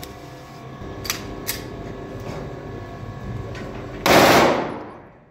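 A single shot from a Pakistani-made Zigana Sport pistol being test-fired, about four seconds in, its report fading over about a second. Two light clicks come before it, about a second in.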